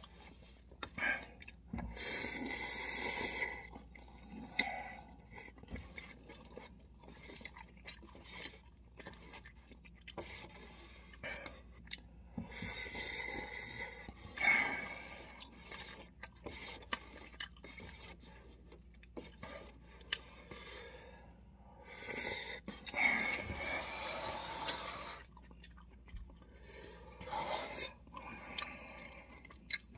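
Eating cup noodles: wooden chopsticks stirring and scraping in a paper cup, with chewing and a few bursts of slurping, each lasting a second or more.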